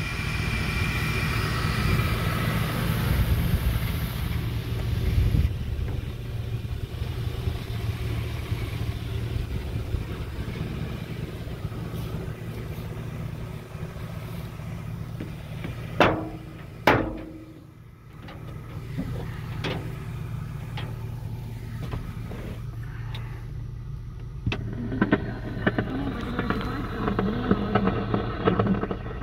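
1966 Ford pickup's engine idling steadily. About halfway through come two sharp knocks a second apart, and near the end the truck's dash radio comes on, adding broadcast sound over the idle.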